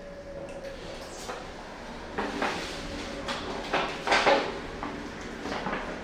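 Lift doors sliding, heard as a run of rattling, scraping bursts from about two seconds in, with a faint steady tone before them.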